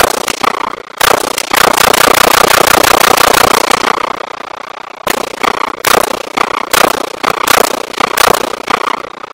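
AR-15-style rifle firing: a fast string of shots running together for about three seconds, then slower single shots a little under a second apart.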